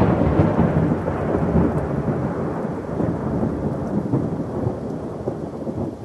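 Deep rumble with a crackling, rattling noise, loud at first and slowly fading away: the rumble of an earthquake aftershock.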